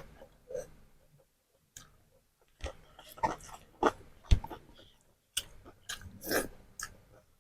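Close-miked chewing and mouth noises of someone eating, coming in irregular bursts, with a single low thump about four seconds in.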